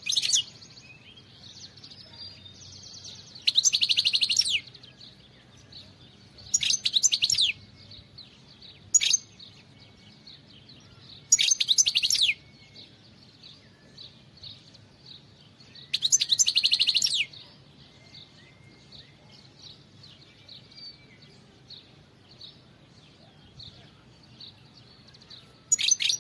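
European goldfinch (chardonneret) singing in short bursts of rapid, high twittering, each about a second long and a few seconds apart, with faint softer chirps in between.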